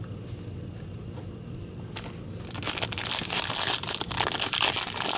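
Foil trading-card pack wrapper being torn open and crinkled by hand. It starts about halfway in as a dense, crackly rustle after a quieter stretch with a few light handling ticks.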